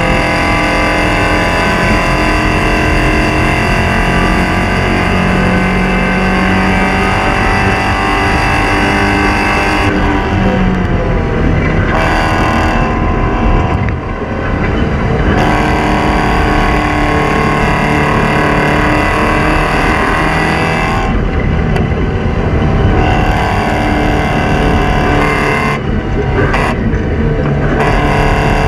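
Porsche 944 Spec race car's 2.5-litre four-cylinder engine running hard at racing speed, with several brief lifts off the throttle for braking and gear changes.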